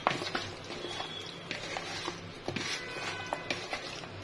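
A hand squishing and turning spice-coated raw chicken pieces in a plastic bowl: a run of wet squelches and small clicks.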